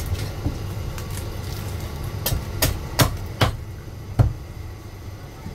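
Heavy cleaver chopping through crispy roast pork belly on the bone against a thick wooden chopping block: about five sharp chops between about two and four seconds in, over a steady low hum.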